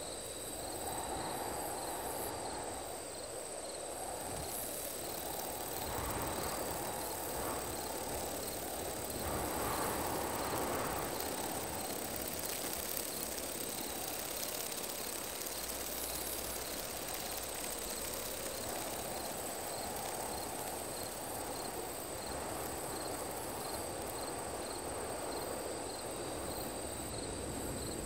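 Synthetic night ambience: crickets trilling steadily with a regular pulsing chirp, over a rushing noise that swells and fades every few seconds.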